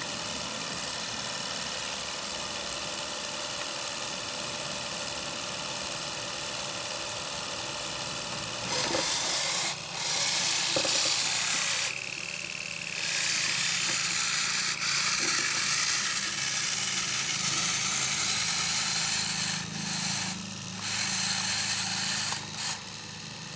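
A machine's motor runs steadily, then gets louder with a rushing, hissing noise from about nine seconds in, easing off briefly several times.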